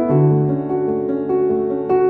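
Background music led by a piano, slow held notes changing about every half second.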